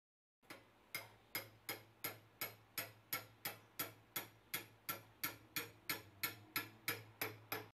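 A hammer taps an osteotomy chisel into the transverse saw cut of a tibia with light, evenly spaced blows, about three a second, about twenty in all. This drives the chisel in to the depth of the lateral bony hinge to begin opening the osteotomy.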